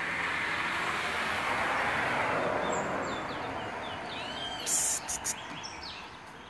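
Cloth cover rustling as it is pulled back from a wooden bird cage, with a few short bird chirps near the middle and several brief sharp high-pitched sounds about five seconds in, the loudest moment.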